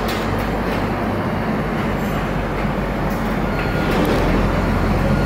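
Steady low rumble of street traffic, a heavy vehicle's engine humming close by.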